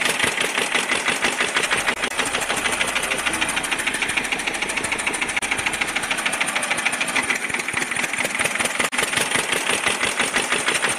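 Tractor engine running with a rapid, even chugging.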